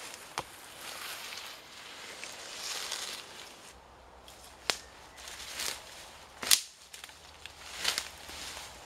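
Footsteps through tall nettles and undergrowth, leaves rustling against legs, with a few sharp snaps, the loudest about six and a half seconds in.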